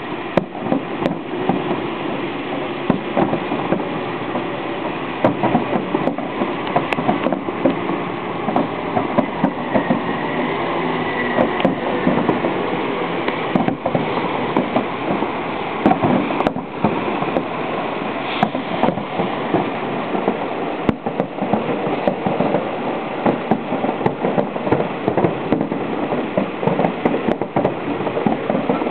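Fireworks display: a continuous barrage of booms and crackles from many shells bursting together, with irregular sharper bangs standing out throughout.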